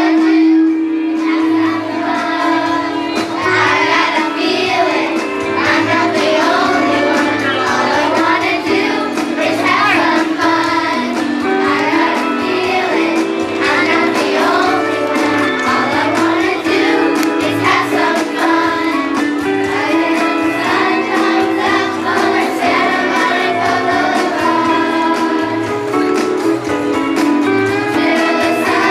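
A children's choir singing a song in unison over an instrumental accompaniment with a steady beat.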